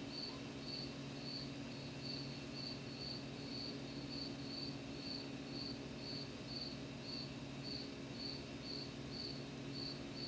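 A cricket chirping steadily, about two chirps a second, over a faint low electrical hum.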